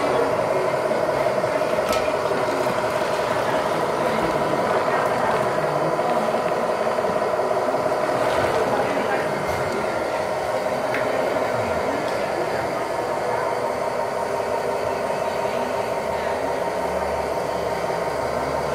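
Radio-controlled Caterpillar 980F scale wheel loader running steadily as it lifts a full bucket of pellets and tips it into a model haul truck: a steady hum of several tones with a few light rattles. Voices chatter in the background.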